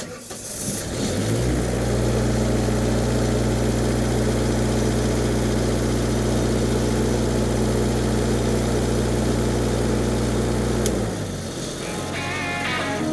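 Lincoln Electric SAE-300 engine-driven welding machine starting up and running at a steady speed. Its sound fades out about two seconds before the end, when guitar music comes in.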